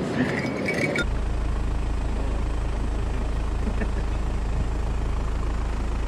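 Rushing stream water for about a second, then a sudden cut to a vehicle's engine running with a steady low hum.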